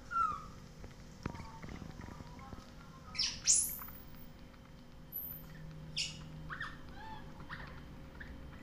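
Baby macaque giving short, high-pitched squeaks and chirps as it sucks at a milk bottle, the loudest about three and a half seconds in and another about six seconds in, with a few light clicks between one and two seconds in.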